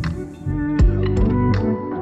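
Background music with a steady beat: deep kick-drum thumps and sharp percussion over held notes.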